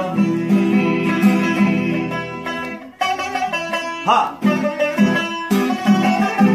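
Background music: an instrumental passage of a song played on plucked string instruments with a steady beat.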